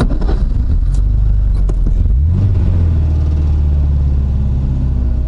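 VAZ 2110's 8-valve four-cylinder engine running at idle, droning like a tractor, with a brief rise in revs about two seconds in.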